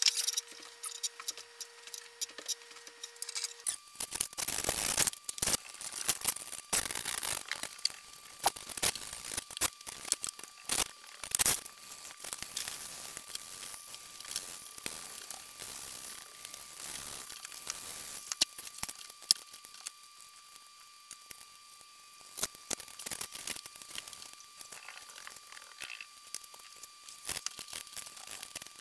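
Irregular scratching and sharp clicks of a small metal pick scraping caked grease and grime out of the thread groove of a Vernon lathe's lead screw.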